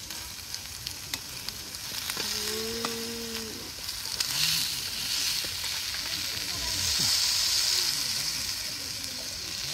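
Wild boar meat sizzling as it fries, with small crackling pops of fat spurting out; the sizzle swells and falls back a few times.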